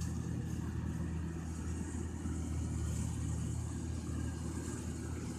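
Rice combine harvester running steadily: a constant engine drone with a mechanical hiss over it.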